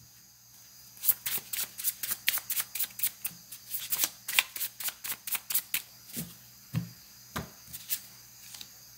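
Tarot cards being shuffled by hand: a quick run of crisp card clicks from about a second in, thinning to a few scattered taps near the end.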